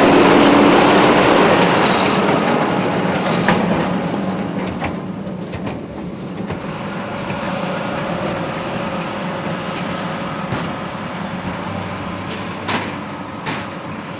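Tractor and hay machinery running in the field, a steady mechanical noise that is loud at first and eases off after a few seconds. A few sharp clicks or knocks come through, the clearest near the end.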